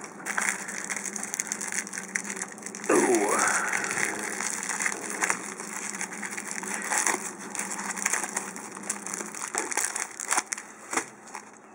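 Plastic shrink-wrap crinkling and crackling as it is torn and peeled off a stack of booster packs, with a loud, brief rising squeak about three seconds in.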